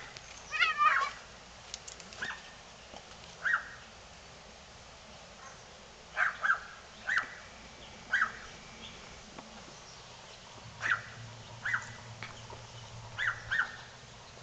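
An animal's short calls, about a dozen brief falling cries at irregular intervals, with a longer warbling call about a second in.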